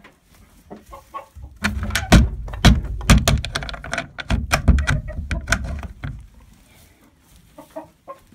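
Chickens clucking, with a dense run of loud knocks and rustling from about two to six seconds in.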